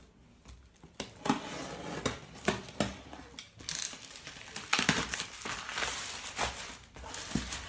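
Parcel packaging being torn open and crinkled by hand: irregular rustling with sharp crackles, starting about a second in.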